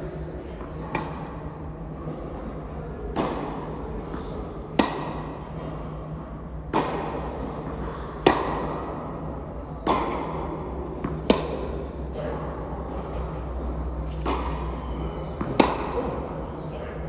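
A tennis ball struck back and forth in a baseline rally: a sharp pop every second or two, some loud and close, others fainter. Each pop echoes in the indoor hall.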